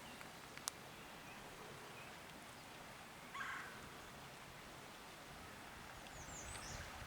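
Faint outdoor ambience with a steady soft hiss, a single click under a second in, and a short rough call about three seconds in. Near the end comes a quick run of high, falling bird chirps.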